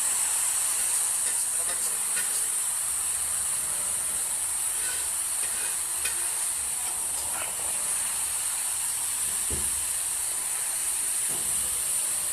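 Steady rushing hiss of a waterfall's falling water, even and unbroken, with a few faint knocks.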